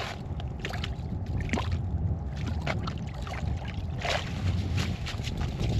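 Steady low wind rumble on the microphone, with scattered short clicks and scrapes.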